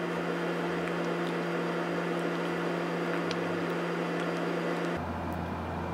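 A steady machine hum whose low tone drops to a deeper one about five seconds in.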